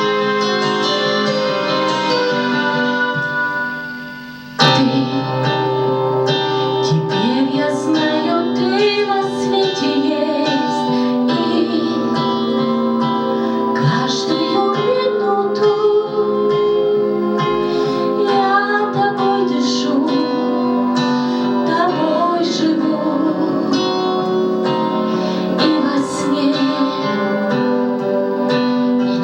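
Song accompaniment with no sung words: a sustained keyboard-like chord bed with a sliding, voice-like melody over it. It dips briefly and comes back in suddenly about four and a half seconds in.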